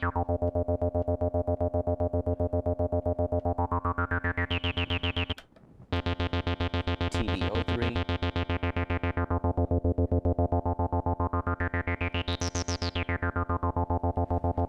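Roland TB-303 bass synthesizer playing a fast repeating one-note acid bassline, its filter sweeping open to a bright squelch and closing again twice. The pattern stops briefly about five and a half seconds in, then starts again.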